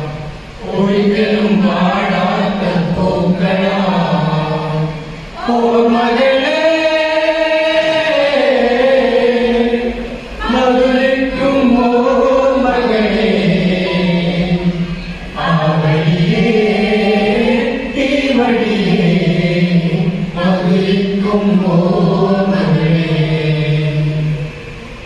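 Voices singing a slow song together in unison, long drawn-out notes sung in phrases of about five seconds with short breaths between them.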